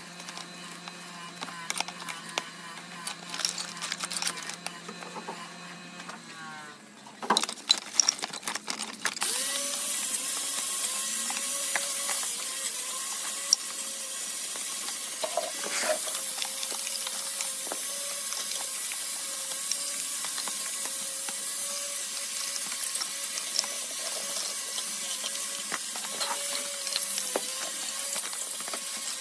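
Small metallic clicks and handling over a low hum, a few sharp knocks, then from about nine seconds in a steady hiss of air with a faint wavering tone under it.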